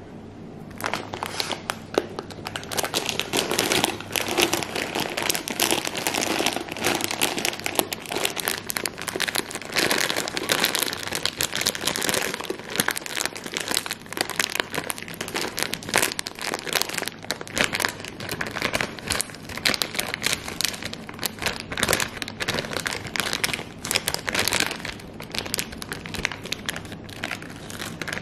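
Brown sugar being poured from a crinkling plastic packet into a glass canister: the packet rustles and crackles continuously while the sugar falls into the jar.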